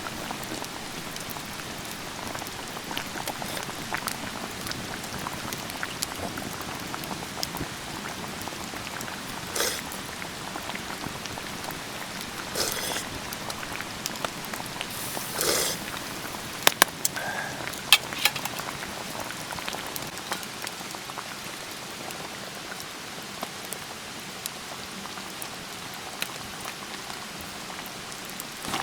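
Steady rain falling, with many drops ticking on a surface, a few short louder rushes in the middle and some sharp drip clicks soon after.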